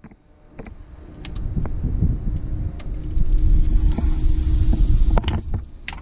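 Low rumble on the microphone, with scattered light clicks of metal tools and parts as hands work on the alternator's fasteners. A faint high insect buzz comes in about halfway through.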